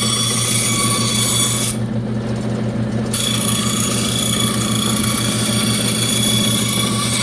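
12-inch bandsaw running and cutting thin plywood: a steady motor hum under a loud high hiss of the blade in the wood. About two seconds in, the high cutting hiss drops away for a second and a half while the motor keeps running.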